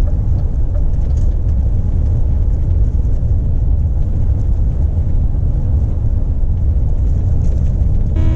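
Steady low drone of a lorry cab on the move, engine and road noise. Near the end a steady pitched tone sounds for about a second.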